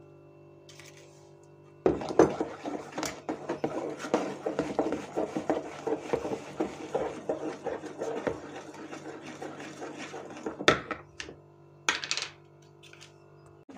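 Wooden spatula briskly stirring baking soda into kefir batter in a plastic bowl: a rapid, irregular scraping clatter starting about two seconds in and lasting some eight seconds, then a couple of sharp knocks near the end.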